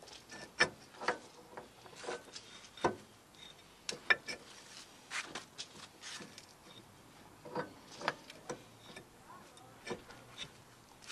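Irregular sharp metallic clicks and clinks as a steel wheel-stud flange is worked onto the splines of a Classic Mini's front hub, metal knocking on metal as the splines and bolt holes are lined up.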